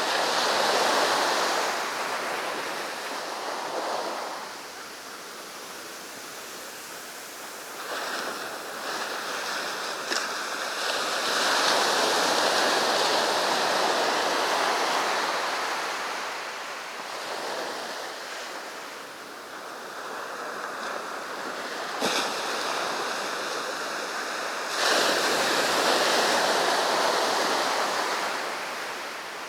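Sea surf on a beach: waves breaking and washing up the sand, the sound swelling and fading in long surges, with one wave breaking suddenly about three-quarters of the way through.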